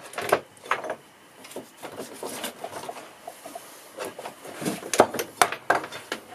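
Irregular knocks, clicks and clattering of objects being handled in a workshop, with a loud cluster of knocks about five seconds in.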